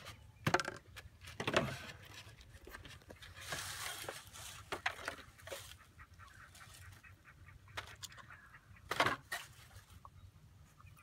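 A toddler slurping ranch dressing from a small cup tipped up to his mouth, in short irregular bursts.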